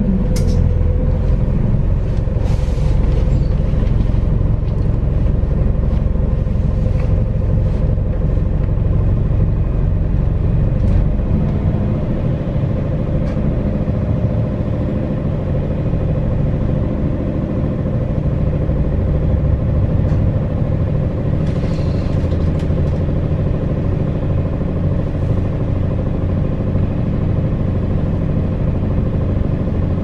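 MAZ-206 city bus driving, heard from on board: steady engine and road rumble with a steady whine and occasional light rattles. The deep rumble eases a little about a third of the way in.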